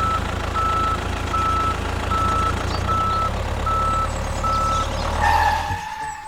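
Truck-type engine running steadily while a reversing alarm beeps evenly, about once every 0.8 seconds. The beeping stops after about four and a half seconds, and a louder, lower tone sounds near the end just as the engine cuts off.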